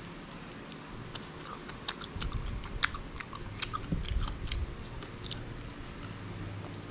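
Close-up chewing and crunching of crispy fried tuyo (dried salted fish), with a run of sharp crackles in the middle few seconds.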